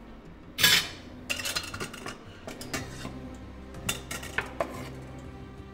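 Metal kitchen utensils clanking and clinking: a steel strainer and a ladle being handled and set down on a wooden cutting board. There is one loud clank about half a second in, then several groups of lighter clinks.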